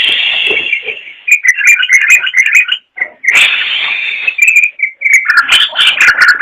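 Sooty-headed bulbul (trucukan) singing: quick bubbling, whistled notes alternating with harsh, rasping chatters, which come at the start and again about three seconds in.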